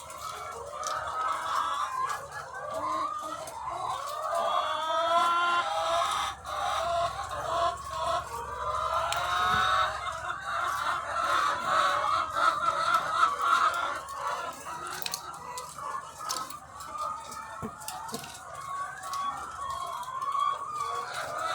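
A large flock of egg-laying hens clucking and cackling, many calls overlapping into a continuous din.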